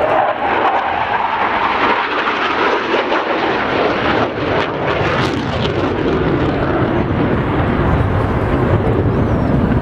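Tornado jet flying over the airfield, its engines making a steady loud rush that deepens in pitch in the second half as it passes.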